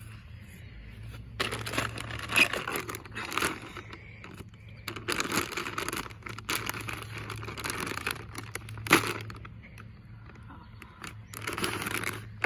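Plastic bag of potting soil crinkling and tearing in irregular bursts as it is wrestled open, with one sharp snap about nine seconds in.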